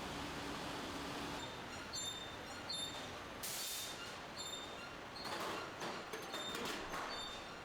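Sheet-metal factory machinery: a steady hum with hiss, then from about a second and a half in, irregular metal knocks and clatter with short high squeaks. A brief hiss of air comes about three and a half seconds in.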